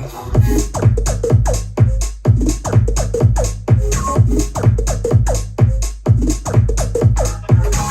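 Electronic dance music played through a Harman Kardon Go + Play 3 portable speaker at 70% volume: a heavy bass beat at about two strikes a second, with short notes that fall in pitch.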